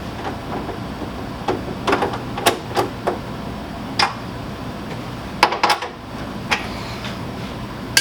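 Irregular clicks and knocks of hands working the rear door handle and its latch cable inside an opened Toyota Sienna rear door, with a quick run of clicks a little before the sixth second. A steady low hum runs beneath.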